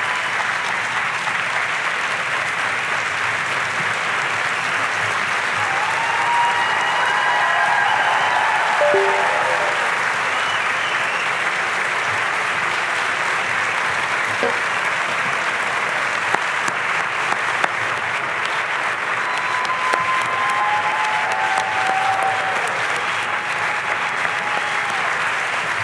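Large audience applauding steadily for the whole stretch.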